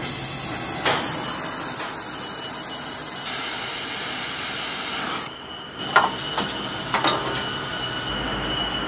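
Oxy-fuel torch lit and running with a steady loud hiss as its flame heat-straightens the high side of a welded steel driveshaft tube. About five seconds in, the hiss stops. Then water poured on the hot tube sizzles and crackles into steam with a steady high whistle, quenching the steel so it pulls straight.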